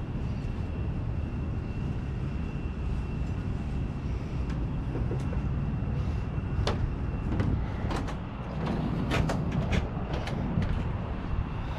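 Steady low outdoor rumble with a faint high steady whine that stops about seven seconds in, and a handful of sharp clicks or taps in the second half.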